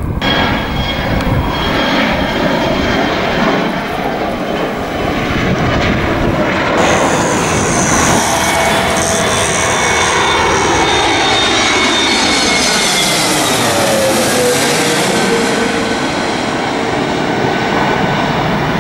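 Jet airliner engines: first the rumble of an Airbus A320 on the airfield, then a twin-engine jet airliner passing low overhead with its gear down on approach. As it goes by, its engine whine falls in pitch and the sound sweeps.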